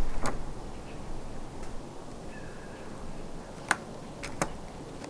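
A few sharp clicks over a faint steady hiss: one just after the start, then three more close together about three and a half to four and a half seconds in.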